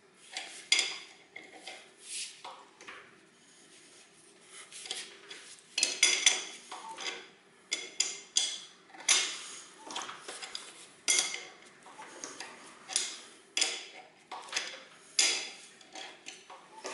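Metal hand tools clinking and clattering against each other and the engine, in irregular sharp knocks and scrapes, with a quieter stretch a few seconds in.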